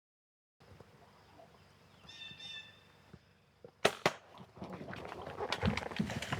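Faint bush ambience: a short high call about two seconds in, two sharp snaps close together near the middle, then irregular crackling and rustling, like movement through brush.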